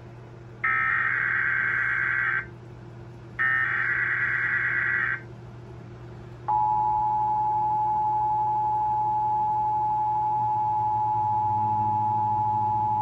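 Emergency Alert System activation for a severe thunderstorm watch: two harsh, buzzing bursts of the SAME digital header, each about two seconds long, then the steady two-tone attention signal, which starts about six and a half seconds in and holds.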